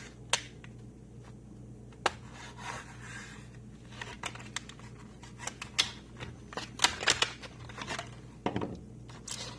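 Packaging being handled and opened by hand: irregular sharp clicks and snaps with short bursts of rustling, busiest in the second half.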